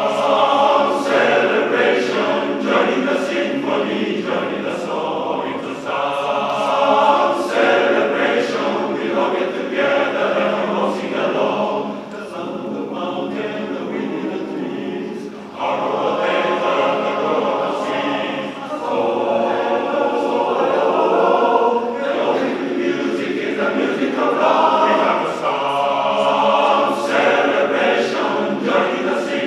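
Men's barbershop chorus singing a cappella in close four-part harmony, with a softer passage about halfway through before the full sound comes back.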